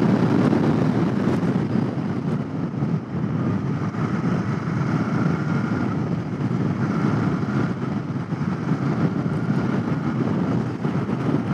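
Royal Enfield Continental GT 650's 648 cc parallel-twin engine running steadily at road speed, mixed with wind noise on the helmet-mounted microphone.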